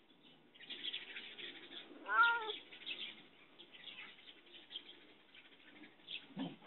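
A cat meows once, a rising-then-falling call about two seconds in, over soft scratchy rustling. A short falling sound follows near the end.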